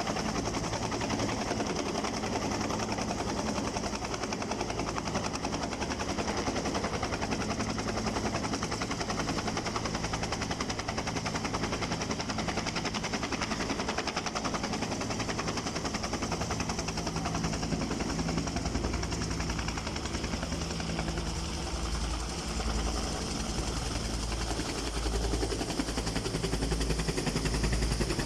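Helicopter flying over, its rotor chopping in a fast steady beat; the low thudding grows louder over the last several seconds.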